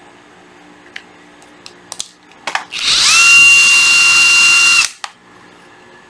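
Hilti SID 14-A 14.4 V brushless cordless impact driver run with no load. After a few light handling clicks, the motor spins up with a whine that rises briefly and then holds steady for about two seconds before stopping sharply.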